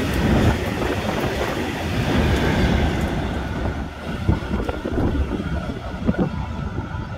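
Freight train of tank wagons passing at speed, a dense rush of wheel and rail noise. About three seconds in the rush thins out as the last wagon goes by, leaving a lower rumble with irregular knocks as the train recedes.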